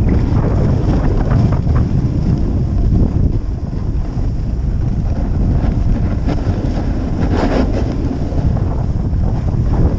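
Wind buffeting the camera microphone on a fast downhill ski run, a heavy steady rumble, with the hiss and scrape of skis on packed snow. The loudest scrape comes about seven and a half seconds in.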